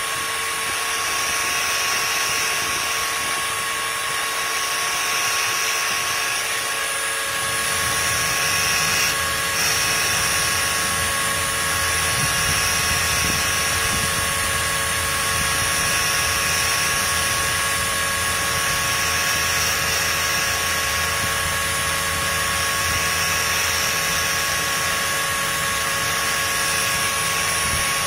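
CNC spindle and handheld rotary tool running together with a steady high whine while the spindle grinds the tip of a V-bit held in the rotary tool. A hiss swells and fades about every two seconds, and a deeper hum joins about a quarter of the way in.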